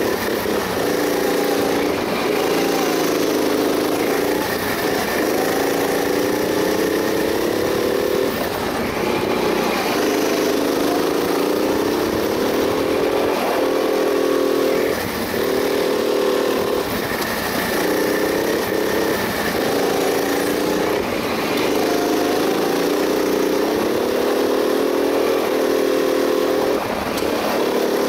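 Go-kart engine heard from on board, revving up along the straights and dropping off each time the driver lifts for a corner, over and over.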